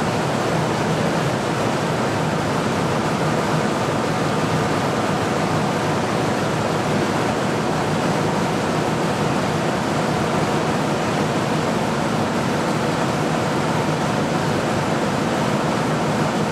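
Large diesel generator engine running steadily at speed, with a faint low hum in the noise; the generator is at about 60 cycles while it is being synchronised to the grid.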